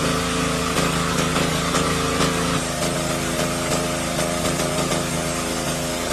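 A small engine running steadily at constant speed, its note shifting slightly about two and a half seconds in.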